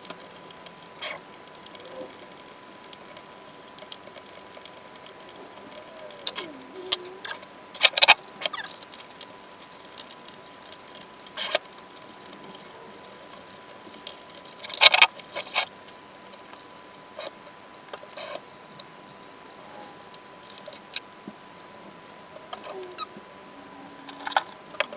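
Hands working cables and small plastic parts on a CNC frame: scattered clicks, taps and rustles, with a couple of louder clatters, over a faint steady high tone.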